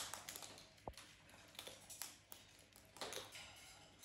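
Macaws picking and cracking seeds at a metal feeding tray: faint, scattered beak clicks and taps on the seed and the metal, with a short scratchy rustle about three seconds in.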